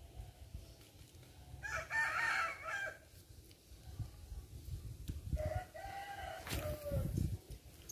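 A rooster crowing twice, about two seconds in and again about five seconds in, the second crow trailing off in a falling tone, over a low steady rumble.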